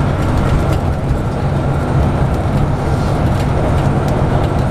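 Scania N94UB Omnidekka double-decker bus on the move, heard from inside the passenger saloon: its 9-litre five-cylinder diesel drones steadily together with road noise, with a few faint rattles and ticks.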